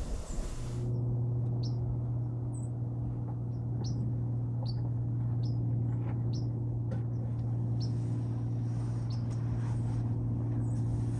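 A steady low hum with small birds giving short, high chirps over it, one about every half second to a second. Wind noise stops less than a second in.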